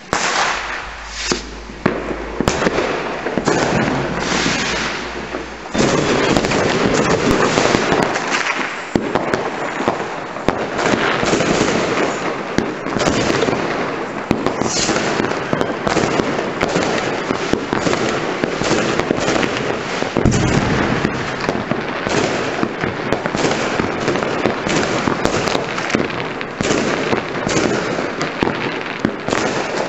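Many fireworks and firecrackers going off at once: a continuous crackle of overlapping bangs and sharp cracks, growing louder and denser about six seconds in.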